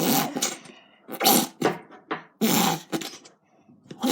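A squeezed plastic shampoo bottle spitting out air and shampoo in about four short, noisy, sputtering squirts.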